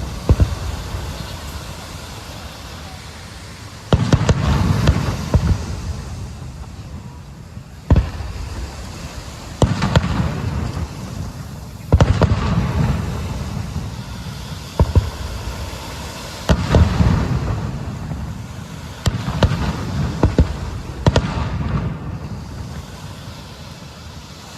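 Aerial fireworks shells bursting, a sharp boom every two to four seconds, each followed by a low rumbling echo and crackle that dies away.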